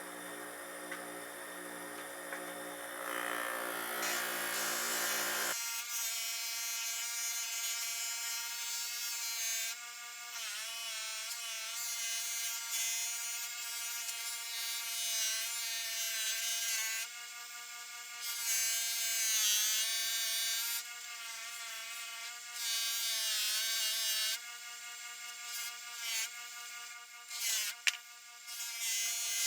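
Electric polishing motor with a buffing wheel running steadily, its pitch dipping briefly several times as the steel blade is pressed against the wheel. The steady whine starts about five seconds in.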